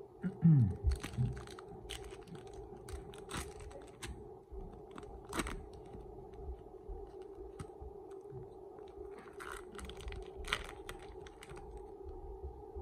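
Foil trading-card pack crinkling and crackling as it is torn open and the cards are handled, with a few louder low thumps near the start.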